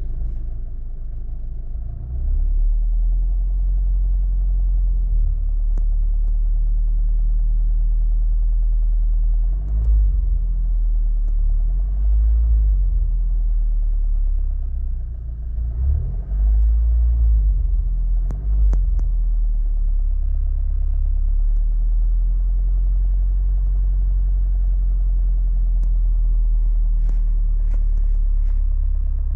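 Honda Civic Type R FK8's 2.0-litre turbocharged four-cylinder engine running, its speed rising and falling briefly a few times, with a knocking sound that the owner hears from the new engine.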